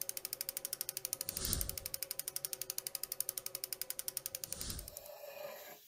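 Logo sound effect of turning gears: a rapid, even ratchet clicking, about a dozen clicks a second, with a whoosh swelling about a second and a half in and another near the end. The clicking stops about five seconds in and the sound fades out.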